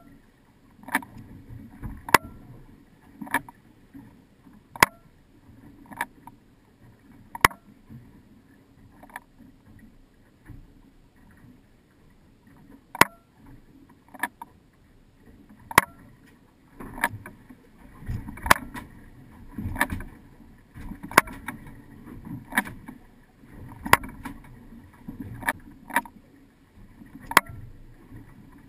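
Waves slapping against the hull of a drifting sportfishing boat: sharp knocks at irregular intervals of about one to two seconds, over a low wash of water.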